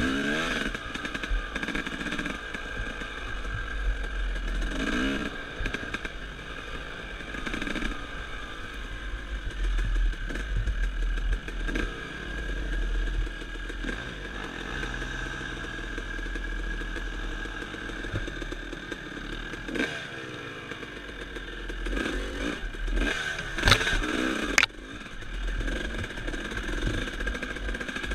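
Dirt bike engine revving up and down as the throttle is opened and closed on a rough trail. Near the end there are a few sharp knocks from the bike jolting over bumps.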